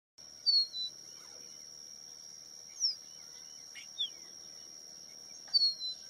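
Crested bunting calling: a short, high, falling two-note phrase, repeated about five seconds later, with a couple of single falling notes between. A steady high-pitched whine sits underneath.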